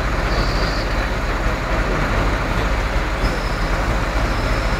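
Heavy diesel engine of a truck-mounted crane running steadily with a deep rumble, with a faint high whine coming and going.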